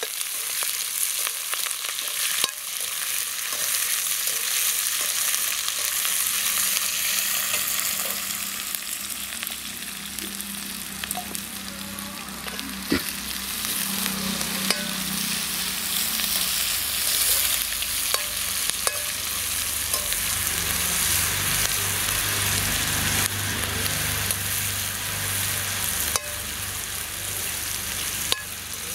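Sliced onions and green chillies sizzling steadily in hot oil in a metal kadai, stirred with a slotted steel ladle that scrapes and clicks against the pan now and then.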